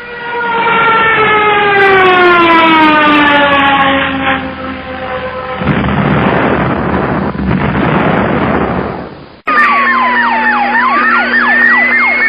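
Sound effects played back to back: a long falling whistle, then about four seconds of loud rushing noise, then after a sudden cut a siren-like effect whose tone sweeps down and back up over steady tones.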